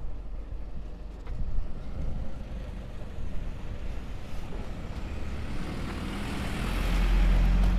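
Road traffic: a heavy vehicle's engine rumbling, growing louder over the last two seconds as it comes close, then cutting off suddenly.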